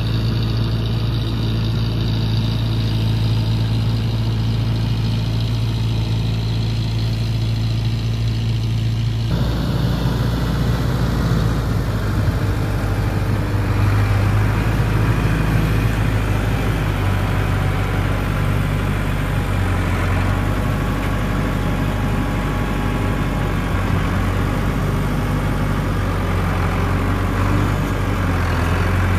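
LS Plus 80 tractor's diesel engine running steadily as it works the front-end loader and drives through mud. About nine seconds in the engine note suddenly turns fuller and rougher and stays that way.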